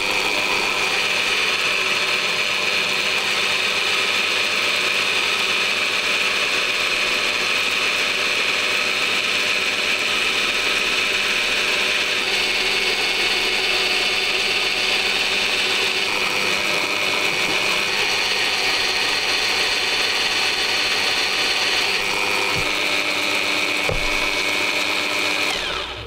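Drill press running steadily with a 5 mm twist bit boring out the brass rivet of a fishing reel's handle knob. It spins down and stops near the end.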